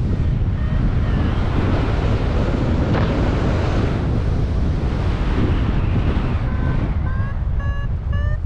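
Wind rushing over the microphone in flight, steady and loud. About six and a half seconds in, a flight variometer's short beeps return in a quick series, stepping up in pitch: the sign of the glider climbing.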